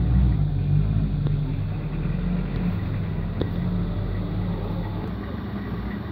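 A steady low mechanical hum and rumble from a running motor, easing off slightly, with a few faint clicks.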